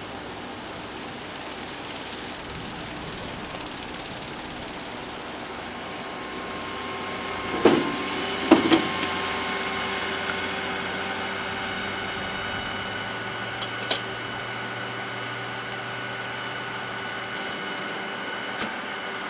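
Steady vehicle engine and traffic noise, with two sharp knocks a little under halfway through and a lighter click or two later.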